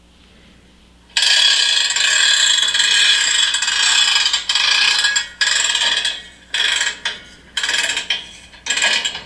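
Hand brake on a railroad tank car being wound on: the brake wheel's ratchet and pawl click rapidly in one long stretch of about four seconds, then in four short bursts.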